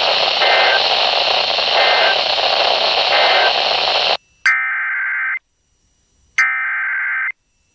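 Radio static hiss with three faint data chirps buried in it. About four seconds in the static cuts off, and two clean Emergency Alert System SAME header bursts follow: harsh warbling digital data tones, each about a second long, a second apart, the coded header that opens a new alert.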